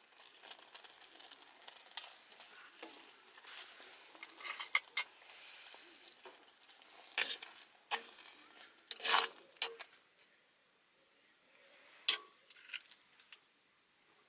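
Cookware and utensils being handled: scattered sharp clinks and scrapes of metal, with a short hiss near the middle.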